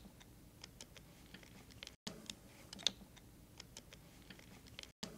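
Faint, scattered light clicks and taps from a Phillips screwdriver tightening down a split rubber hose stop on an air hose and the stop and hose being handled, with two momentary dropouts to silence.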